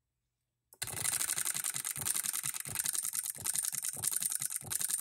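Electric hit-and-miss solenoid model engine starting up by itself on power and running, a fast, even train of sharp mechanical clicks from its solenoid and moving parts. The clicks start about a second in, out of dead silence.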